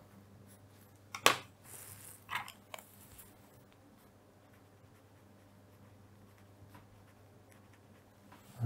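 A pen is set down on paper with one sharp click about a second in, followed by the faint, short scratches of a pen writing on paper.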